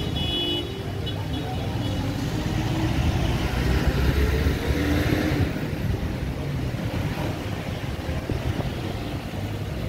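Road traffic: a steady rumble of motor vehicle engines, with one vehicle passing and growing loudest about four to five seconds in.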